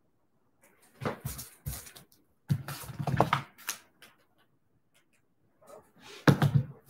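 Handling noise close to the microphone: rustling and small knocks in three bursts, about a second in, from about two and a half to four seconds, and again near the end.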